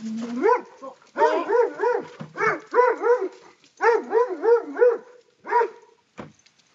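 Dog barking in quick runs of four or five pitched barks, a few barks a second, stopping about five and a half seconds in.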